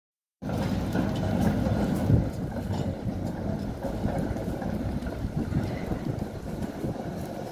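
A Moderus Beta low-floor tram approaching along street tracks, heard as a steady low rumble mixed with city noise. The sound is cut off for about the first half second.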